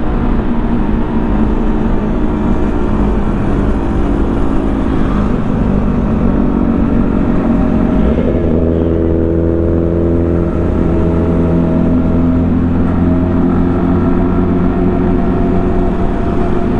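Sport motorcycle engines running steadily while riding along a road, over steady road and wind noise. About halfway through, the engine note shifts to a new pitch.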